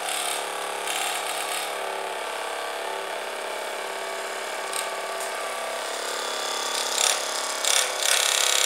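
Small battery-powered DC hobby motor of a homemade plastic-bottle boat running with a steady whine. Short hissy bursts come about a second in and a few times near the end.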